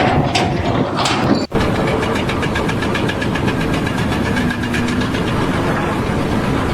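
An engine running steadily with an even, rapid pulse. Before it, a shorter mix of other noise ends in an abrupt cut about one and a half seconds in.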